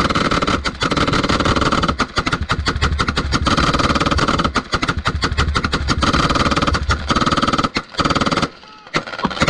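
An engine running loudly and steadily, overlaid with dense crackling and buffeting. It drops out briefly twice near the end.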